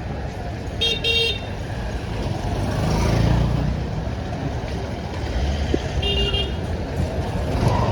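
Street traffic noise with vehicle horns: a quick double beep about a second in and another short beep about six seconds in, with a vehicle passing close around the middle.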